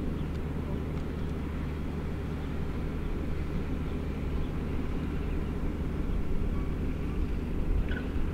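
A steady low engine drone with a rumble of noise beneath it, holding an even level.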